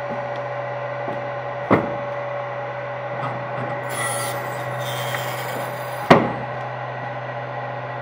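CNC milling machine running with a steady motor hum, with two sharp knocks, a bit under two seconds in and about six seconds in, and a brief high scraping hiss between them.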